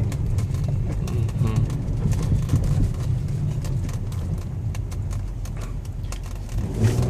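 Inside the cabin of a Mitsubishi Outlander III on a slippery road: the engine and tyres give a steady low rumble with irregular clicks and crackles. Under light throttle the all-wheel-drive coupling hums faintly, the hum that the cold car's coupling makes when the wheels slip.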